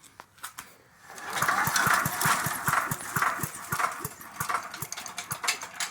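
Chipper shredder's small engine being cranked over by its pull cord, starting about a second in, with rapid regular clanking from the loose chipper blades banging around inside and a surge about twice a second.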